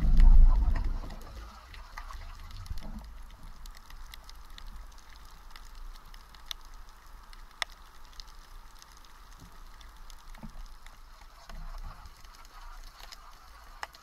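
Underwater ambience picked up by an action camera in its waterproof housing. A muffled low rush of water lasts about the first second, then a faint steady hiss with scattered sharp clicks and crackles.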